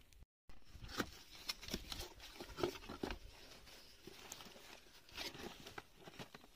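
Plastic courier bag and cardboard box being handled and opened by hand: crinkling, rustling and scattered light taps and knocks.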